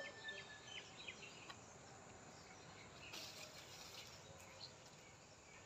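Near silence: faint rural outdoor ambience with scattered faint bird chirps, and a brief soft rustle about three seconds in.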